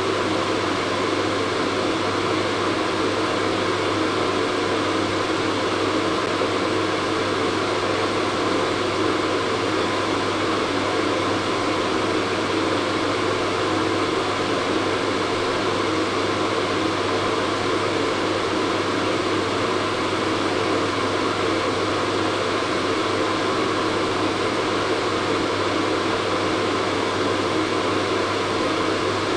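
Hair dryer running steadily: a constant blowing whoosh over a low motor hum, with no change.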